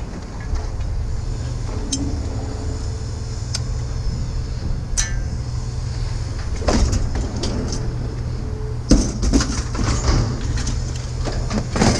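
Steady low rumble of an idling vehicle engine, with scattered metal clanks and clatters as pieces of scrap are thrown onto a pile, the busiest clatter about two-thirds of the way in.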